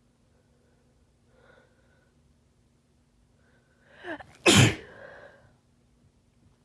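One harsh sneeze from a head cold about four and a half seconds in, preceded by a short catching inhale that builds up to it.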